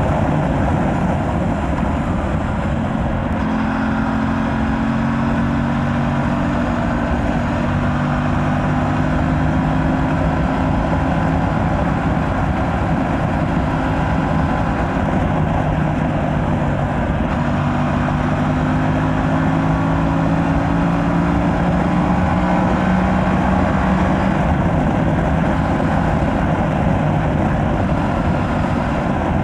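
Aprilia RS 457's parallel-twin engine on the stock exhaust, pulling under way with its pitch rising slowly and stepping a few times, under a constant rush of wind and road noise.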